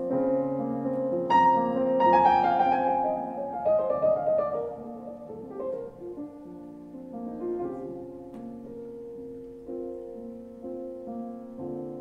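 Saxophone and grand piano playing a slow jazz piece in long held notes. About a second and a half in the piano strikes a bright chord and runs down the keyboard, then settles into quieter sustained chords.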